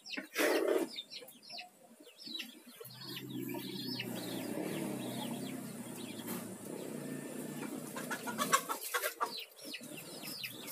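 Chickens clucking with birds chirping, and a steady low hum that swells up about three seconds in and fades out after about five seconds.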